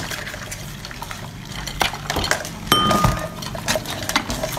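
Liquor and beer being added to a bowl of raw-marinated seafood: splashing liquid among clinks of glass and dishware, with one sharp ringing clink about three seconds in.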